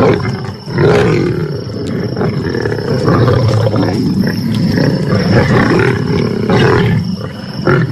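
A pride of lions growling and snarling continuously while they squabble over a carcass as they feed.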